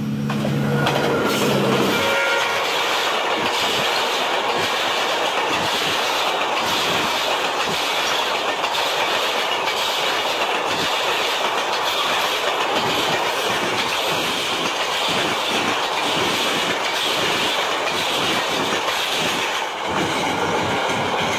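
Diesel locomotive's horn sounding and cutting off about two seconds in, then a passenger train passing at speed: a steady rush of wheel-on-rail noise with an uneven clickety-clack of the wheels.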